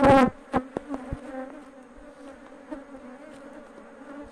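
Honeybee colony buzzing steadily around a brood frame being lifted out of the open hive. A sudden loud burst right at the start and a few light clicks in the first second.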